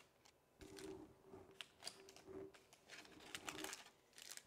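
Foil-wrapped trading card packs being shuffled and handled in their cardboard box: quiet crinkles and light tapping clicks.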